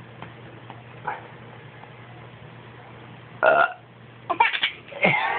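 A man burps once, loudly, about three and a half seconds in, and a baby answers with giggles in quick short bursts.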